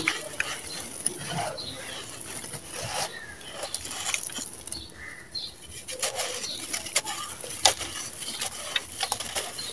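Dry red sand-and-cement chunks crushed and crumbled by hand, grit and small stones pattering down in an uneven stream of gritty crackles and clicks.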